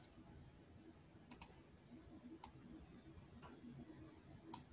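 A few faint computer mouse clicks over near silence, including a quick double click about a second in and then single clicks a second or so apart.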